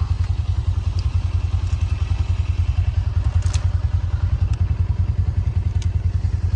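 Side-by-side UTV engine idling with a steady low pulsing note, while a few light clicks and knocks come from a fallen limb being pulled off a wire fence.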